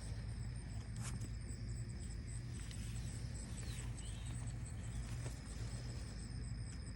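Quiet early-morning outdoor ambience after rain: a steady low hum under thin, steady high-pitched tones, a single click about a second in, and a couple of faint chirps a little past the middle.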